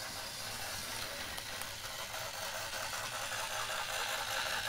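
Battery-powered Tomy toy steam locomotive running along plastic track: its small motor and gears whirring steadily with a light rattle of the cars, getting slightly louder toward the end.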